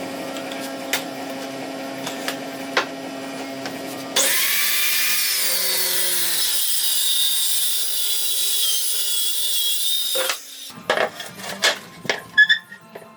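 A power tool starts about 4 seconds in, its motor spinning up, and cuts wood for about six seconds before stopping abruptly. Before it a steady hum with light ticks runs, and after it come several sharp knocks of wood being handled.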